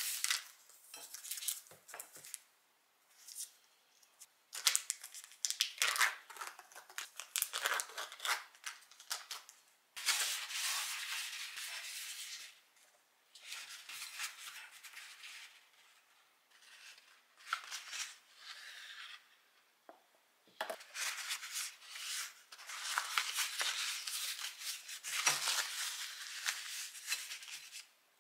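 Crinkling and rustling of plastic tofu packaging and kitchen paper as a block of tofu is unpacked and wrapped in the paper, in stretches of a few seconds with short pauses between.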